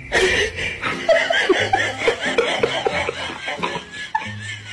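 A person laughing.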